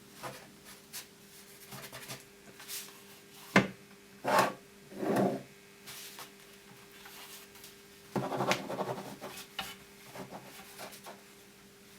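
Rubbing and scraping sounds with scattered small knocks, loudest in two stretches near the middle and about two-thirds through, and one sharp knock about three and a half seconds in. A faint steady hum runs underneath.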